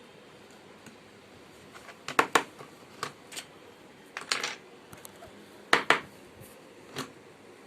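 A series of sharp clicks and clacks of small hard objects being handled, mostly in quick pairs, starting about two seconds in.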